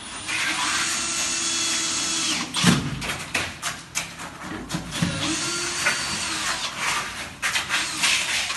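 An electric power tool's motor runs steadily for about two seconds, stops, then spins up again about five seconds in. In between and near the end come knocks and scrapes of hand work with wet concrete.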